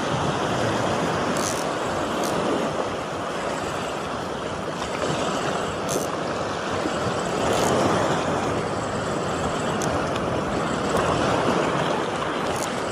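Steady wash of small waves breaking on a beach, swelling and easing, with a few faint clicks.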